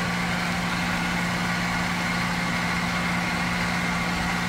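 Steady hum of a running motor at a constant pitch, unchanging throughout.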